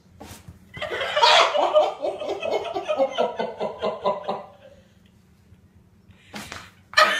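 A person laughing in a long run of quick, repeated bursts that trails off about four and a half seconds in, then breaks out into laughter again just before the end.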